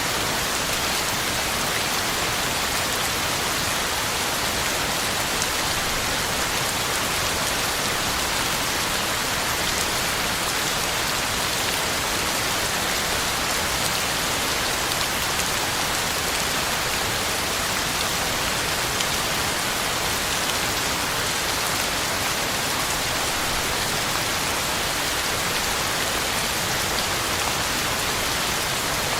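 Heavy rain falling steadily, drops pattering on the ground and leaves in an even hiss.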